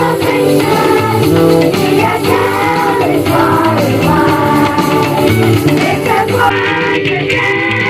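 Music: a children's choir singing with instrumental band accompaniment.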